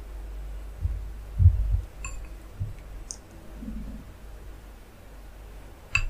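Wooden spoon ladling tomato stew out of a glass bowl onto rice: a few soft low thumps about a second in, then ringing clinks of the spoon against the glass bowl, one about two seconds in and a sharper one near the end.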